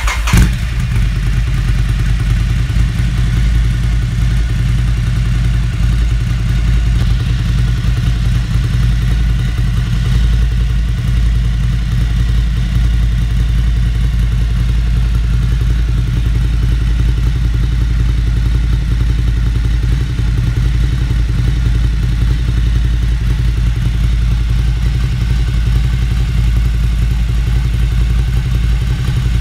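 Ducati Scrambler Cafe Racer's air-cooled L-twin running through an SC Project S1 exhaust. It flares briefly as it fires up right at the start, then settles into a steady idle.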